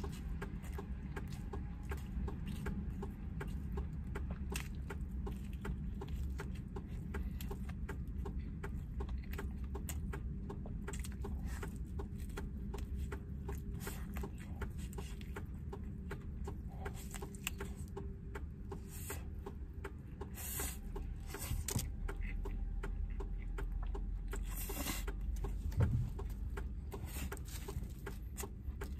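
A man chewing and smacking his lips while eating braised chicken with his hands, with many small wet clicks. A steady low hum runs underneath, and a few louder smacks come in the last third.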